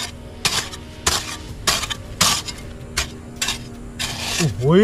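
Metal hoe blade chopping and scraping into packed soil, about two strikes a second. Near the end comes a short voice cry that rises and falls in pitch.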